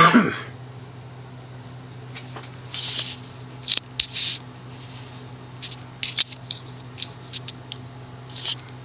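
Scattered short scratching and clicking noises, as of something being handled, over a steady low hum.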